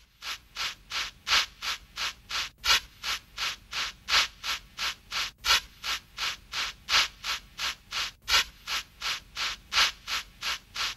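Steam locomotive chuffing at a steady pace, an even rhythm of about three hissing puffs a second.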